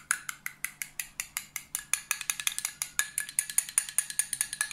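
A metal spoon whisking tomato and pepper paste into water in a small glass tumbler, clinking rapidly against the glass at about seven strokes a second.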